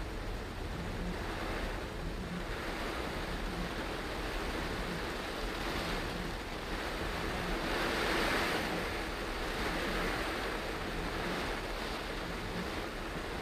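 Heavy rain on a moving car and its tyres on the flooded road, a steady rushing hiss heard from inside the cabin, swelling louder about eight seconds in.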